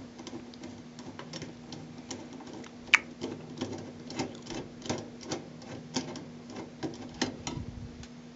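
Socket wrench on an extension ratcheting as it backs out the agitator bolt deep inside a washing machine: irregular sharp clicks, two or three a second, one louder click about three seconds in, over a steady low hum.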